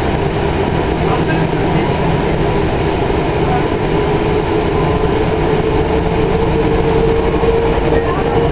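Cabin noise of a moving 2011 Kinki Sharyo light rail vehicle: a steady running rumble with a steady hum, and a mid-pitched tone that grows stronger over the second half.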